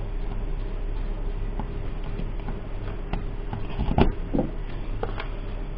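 Small clicks and knocks of a wall-charger plug being handled and pushed into a power-strip socket, the loudest about four seconds in, over a steady low hum.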